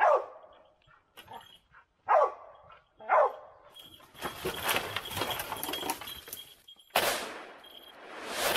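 Boar-hunting hounds baying: three loud barks, each falling in pitch, about a second apart, followed by several seconds of dense, rough noise and a loud harsh burst near the end.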